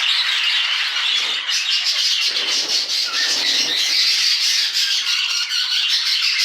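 A flock of budgerigars chattering and squawking together in a continuous, dense din of overlapping calls.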